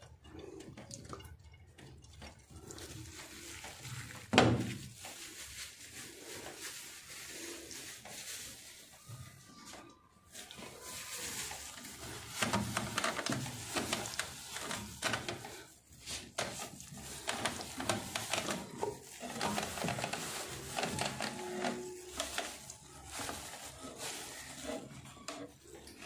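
A cloth wiping and rubbing over the plastic inside of a refrigerator, in irregular strokes with small clicks and scrapes, and a single sharp knock about four seconds in.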